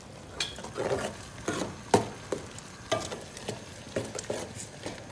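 A metal ladle stirring thick sambar in a metal pot, with irregular knocks and scrapes against the pot about every half second over the sound of the simmering gravy.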